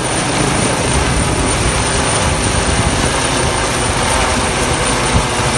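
Airbus EC135 T2+ helicopter with twin Turboméca Arrius 2B2 turboshaft engines climbing away just after take-off: a loud, steady rush of rotor and engine noise with a low pulsing underneath.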